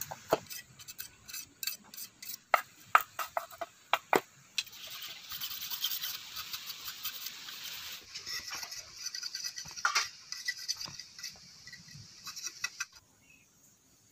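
Large knife splitting and scraping thin bamboo strips. A run of sharp snaps and taps comes first, then a steady scraping rasp as a strip is drawn along the blade, then more taps and scraping that stop about a second before the end.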